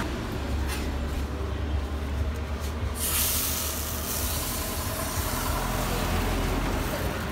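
Steady low rumble of road traffic. An even hiss comes in suddenly about three seconds in.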